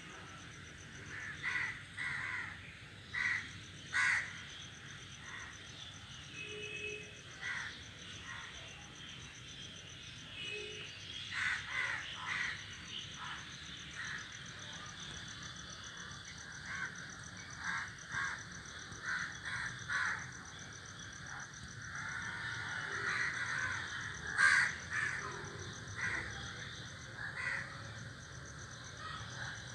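A group of crows cawing: many short calls scattered throughout, some close together or overlapping, the loudest about two-thirds of the way through. A faint steady high-pitched tone runs underneath.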